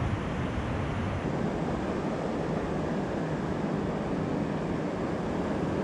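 Steady wash of surf breaking on a sand beach, mixed with wind rumbling on the microphone.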